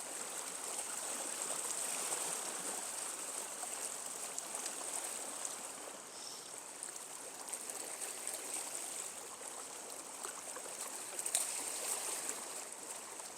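Swollen stream running high after flooding: steady rushing water, with a brief sharp click about 11 seconds in.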